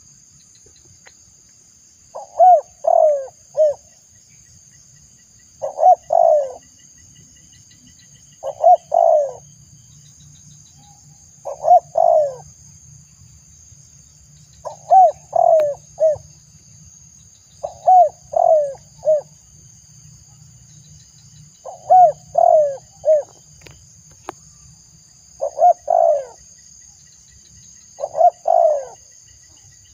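Spotted dove cooing its three-note call, each phrase about a second long, repeated roughly every three seconds, about nine times.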